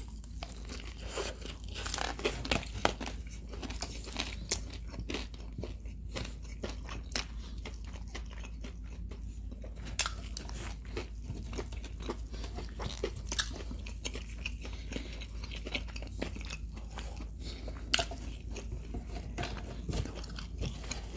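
People biting and chewing fried chicken and fries: an irregular run of crisp crunches and chewing clicks, over a low steady hum.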